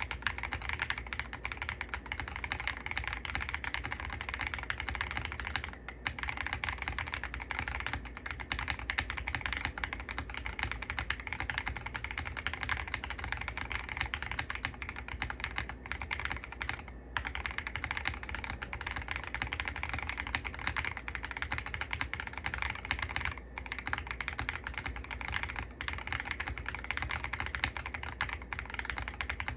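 Fast, continuous typing on a Keychron Q6 Ultra 8K mechanical keyboard with Keychron Silk POM Banana switches, a dense stream of keystroke clicks broken by a few brief pauses.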